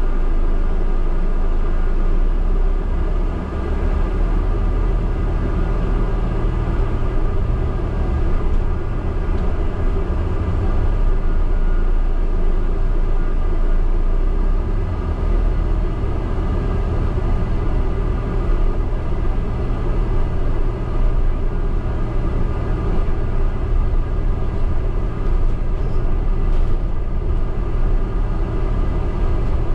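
Cabin sound of a double-decker bus in motion, heard from the upper deck: a steady low rumble from the engine and drivetrain with a constant hum over it.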